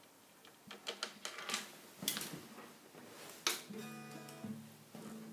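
A handful of short clicks and taps, then an acoustic guitar chord struck about three and a half seconds in and left ringing.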